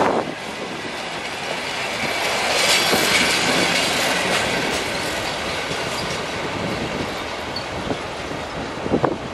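Passenger coaches of a suburban train rolling past close by, their wheels clattering over the rail joints, with a brief high wheel squeal about three seconds in as the last coach passes. The rumble then slowly fades as the train moves away.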